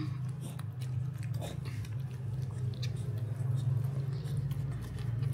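Baby monkey chewing food close to the microphone: a run of short, irregular clicks over a steady low hum.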